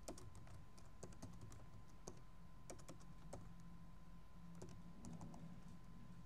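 Faint typing on a computer keyboard: a run of irregular keystroke clicks that stops about five and a half seconds in.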